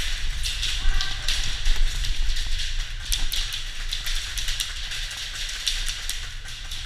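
Footsteps moving over rough ground with irregular sharp clicks and ticks, over a steady low rumble of wind and handling noise on a body-worn camera.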